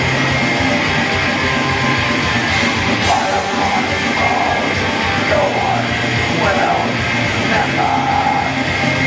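Live heavy metal band playing loud and dense: distorted electric guitars, bass guitar and drums, with a yelled vocal line over the band through the middle of the stretch.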